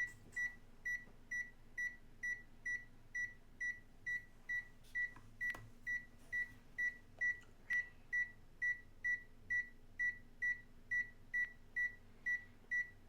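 Steady electronic beeping: a short, high-pitched beep repeating evenly a little over twice a second without a break.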